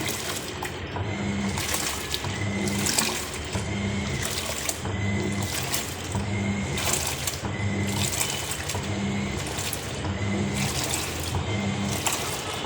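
Sharp washing machine in its wash cycle: the motor hums in short pulses about every one and a half seconds as it drives the wash back and forth, with water sloshing and splashing in the tub between pulses.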